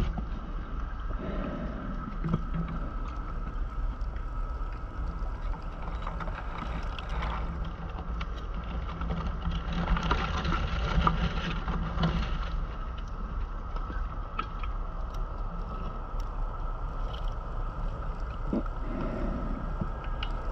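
Underwater sound picked up by a diver's camera on a deep wreck dive: a steady low rumble and hum, with swells of bubbling from the diver's exhaled breath. The largest comes about ten to twelve seconds in.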